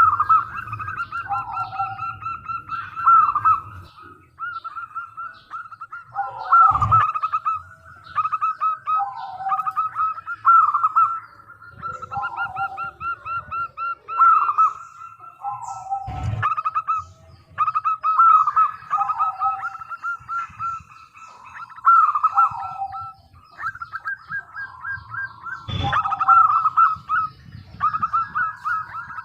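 Zebra dove (local perkutut) cooing: phrase after phrase of quick, rhythmic staccato coos with higher trilling notes above them. Three sharp knocks come through, roughly every nine seconds.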